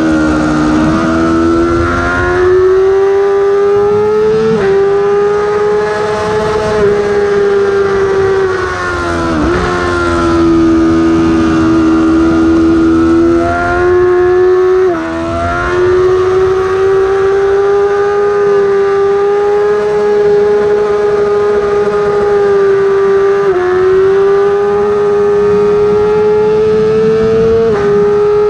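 Yamaha YZF-R6 inline-four sport bike engine screaming at high revs under race riding. Its pitch dips into the corners and climbs again, breaking sharply at each gear change. Wind rush runs underneath.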